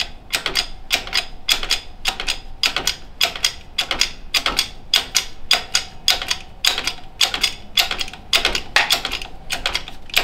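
Hand-pumped hydraulic bottle jack on a shop press, its handle worked up and down in a steady run of sharp clicks, about three a second, as it presses a wrist pin into a piston and connecting rod.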